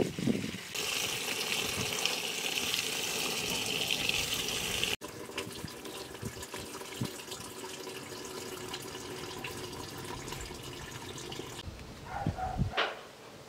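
Water running and splashing into a metal basin of mushrooms being washed, a steady rush for the first few seconds. It cuts off abruptly and gives way to quieter handling with small clicks as the mushrooms are cleaned by hand.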